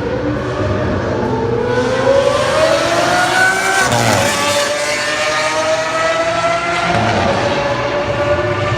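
Supercar engine accelerating hard: its pitch rises for about three seconds, drops sharply about four seconds in as it shifts up a gear, then climbs slowly again.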